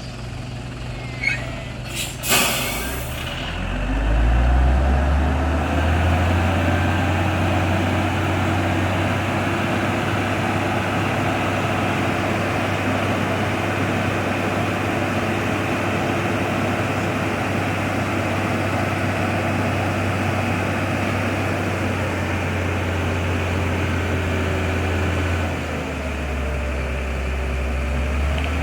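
Hino concrete mixer truck's diesel engine. A couple of clicks and a short burst of air hiss come first, then the engine revs up and runs steadily at raised revs. Near the end it dips for a moment and climbs again.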